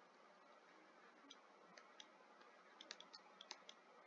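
Faint computer mouse clicks over near silence, made while handwriting numbers on an on-screen whiteboard: a few scattered clicks, then a quicker run of about seven clicks near the end.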